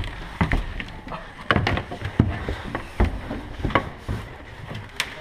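Irregular sharp knocks and clicks, about a dozen, unevenly spaced, from movement through plywood walls and wooden floors.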